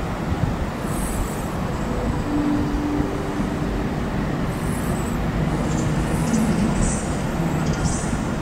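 Electric multiple unit rolling slowly through station pointwork: a steady rumble of the train and its wheels on the rails, with short faint high-pitched wheel squeals coming more often in the second half.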